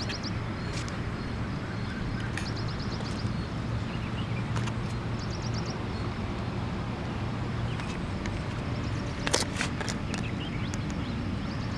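Footsteps crunching and clicking on loose river stones over a steady low hum, with a louder cluster of clicks near the end. Three or four times a short, rapid trill of high ticks sounds, like a small bird's chirping.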